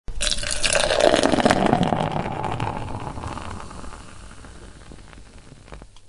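Beer pouring into a glass: a loud splashing pour that starts abruptly, is strongest in the first two seconds, then fades away steadily.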